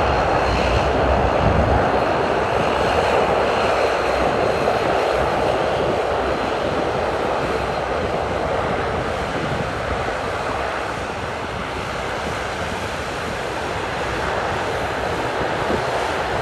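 De Havilland Canada Dash 8-400 turboprop's Pratt & Whitney PW150A engines running steadily with a loud rushing drone, easing slightly about two thirds of the way through and then building again.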